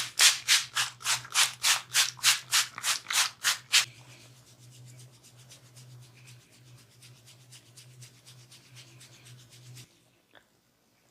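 A barber's hands rubbing and scratching hair and skin close to the microphone during a head and ear massage, in loud even strokes about four a second. From about four seconds in the strokes turn softer and quicker. A low steady hum runs underneath, and everything stops about ten seconds in.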